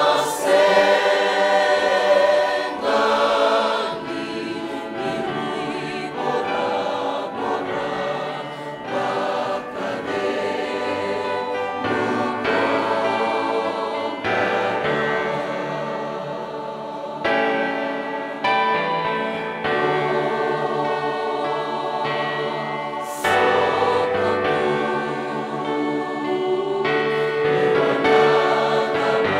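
Church choir of many voices singing a hymn in Fijian in harmony, in sung phrases with short breaks between them.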